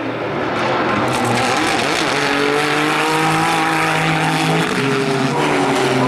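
GT3 race car engine running hard on track. It grows louder over the first second, and its pitch steps down a little near the end.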